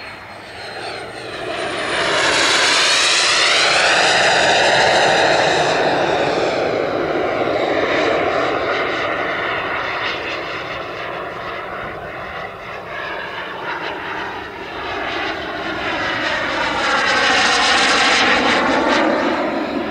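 Turbine engine of a scale model F-104 Starfighter RC jet flying past. Its jet noise swells loud with a sweeping, phasing whoosh a few seconds in, eases off, then swells again near the end as it makes a second pass.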